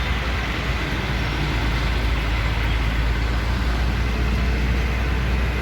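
A heavy engine running steadily: a deep, even drone with a noisy wash of machine sound over it.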